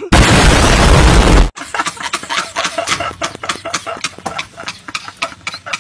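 A loud explosion sound effect, a dense blast that lasts about a second and a half and cuts off abruptly. It is followed by hearty, breathless laughter in quick repeated bursts.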